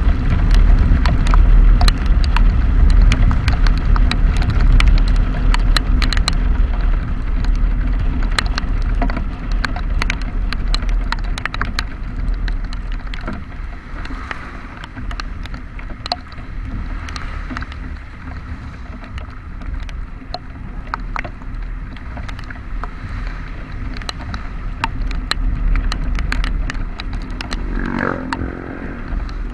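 Vehicle moving through rain, with a steady low rumble and many sharp ticks of raindrops throughout. The level falls off after about ten seconds, and a brief wavering tone sounds near the end.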